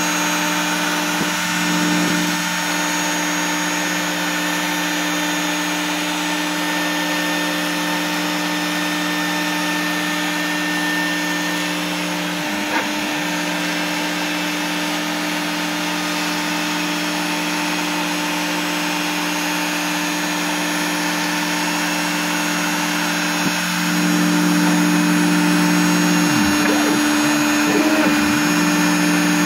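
Bosch Colt trim router spinning a 1/32-inch single-flute bit as the CNC cuts foam board, a steady high-speed motor whine over the constant hum of the vacuum that holds the board down on the table. It gets a little louder about three-quarters of the way through.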